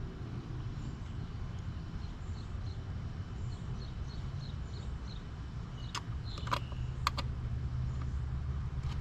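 A few sharp metallic clinks about six to seven seconds in, one briefly ringing, as metal parts and tools are handled during reassembly of the outboard's water pump. Over a steady low background rumble, with faint repeated high chirps in the first half.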